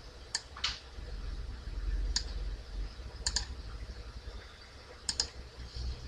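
Sparse clicking of a computer mouse: a few single clicks and two quick double clicks, over a low steady hum.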